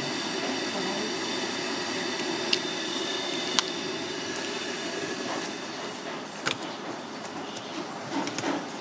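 Pot of broth with garlic and lemongrass at a rolling boil on a gas burner, a steady hiss of bubbling, with three sharp clinks of kitchen utensils.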